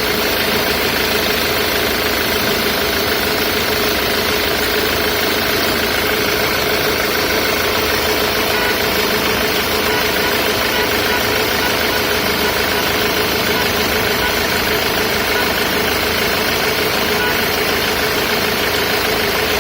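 Ford Mondeo Mk3 2.0 TDCi four-cylinder diesel engine idling steadily with an even diesel clatter.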